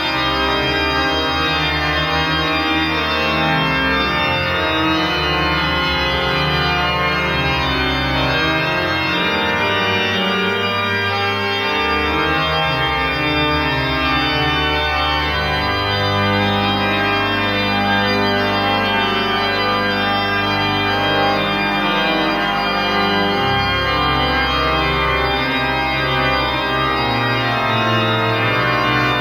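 Organ playing slow, sustained chords, the low notes changing every few seconds.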